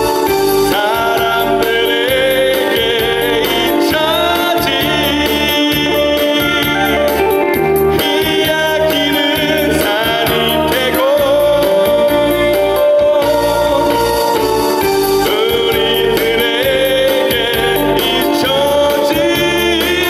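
Male singer singing a Korean song live into a handheld microphone over amplified instrumental accompaniment with a steady beat.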